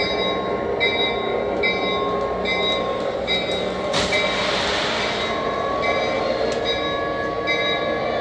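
O-scale New York Central switcher model's sound system playing a diesel locomotive bell, which rings steadily about once every 0.8 s over the engine rumble, with a short hiss of air about 4 seconds in.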